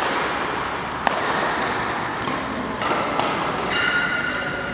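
Badminton rackets striking a shuttlecock in a rally: sharp cracking hits, three in a few seconds, the last two close together, over a steady background murmur from the crowd in the hall.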